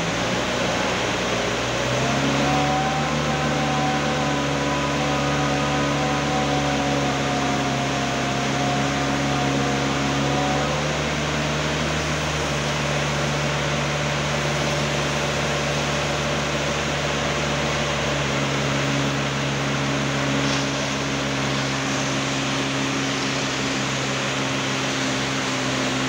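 Engine of a self-loading concrete mixer running steadily. Its hum steps up in pitch about two seconds in, with a fainter higher whine over it until about ten seconds in, and shifts again near eighteen seconds.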